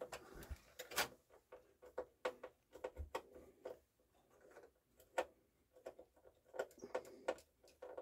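Light, irregular clicks, taps and small scrapes of hands fitting cables and small parts inside the opened CD changer's metal chassis.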